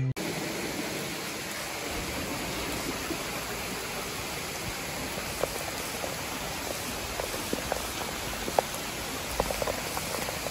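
Steady rain falling on a flagstone patio and lawn: a constant even hiss, with a few single drops ticking close by in the second half.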